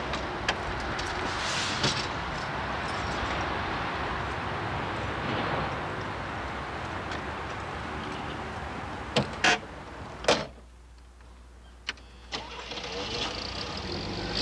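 Steady rushing noise, then a few knocks and a car door slamming shut about ten seconds in.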